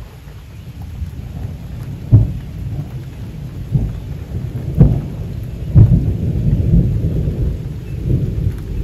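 Thunder rumbling and building in loudness, with several sharp cracks, the strongest about two seconds in, near the middle and a second after that, over a steady hiss of rain.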